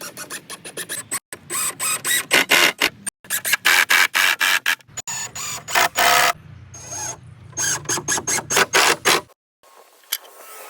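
Quick, irregular runs of sharp clicks and knocks from woodworking tools on wood, cut off abruptly several times.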